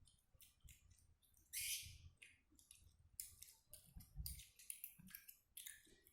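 Faint close-up eating sounds of a child chewing meatballs with chili sauce: a run of soft, irregular wet mouth clicks and smacks, with a short hissy slurp about a second and a half in.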